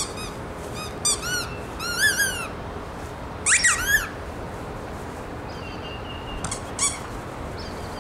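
Cardigan Welsh corgi whining in short, high-pitched, rising-and-falling squeaks while waiting for its ball: a run of them in the first couple of seconds, a quick tangle about three and a half seconds in, and two more near the end.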